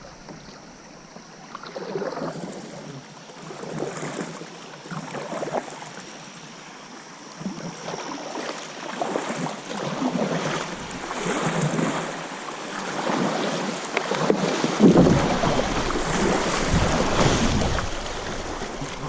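Kayak paddle strokes pulling through fast-moving, high river water, a splash about every one to two seconds and growing louder. Wind buffets the microphone with a low rumble near the end.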